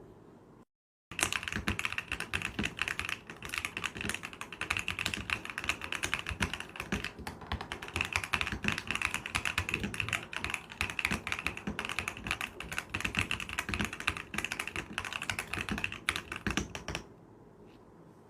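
Mechanical keyboard with Kailh Box Jam Ice Cream linear switches (PUK stem, POM housings) being typed on quickly: a dense, continuous run of crisp keystroke clacks that starts about a second in and stops about a second before the end.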